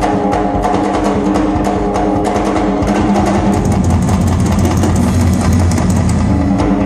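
Live rock drum solo on a full drum kit: rapid, dense drum and cymbal hits over a steady low drone.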